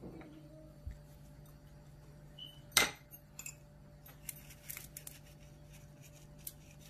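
Sesame seeds sprinkled by hand onto egg-washed dough and aluminium foil, giving light scattered ticks in the second half, after one sharp tap about three seconds in. A steady low hum runs underneath.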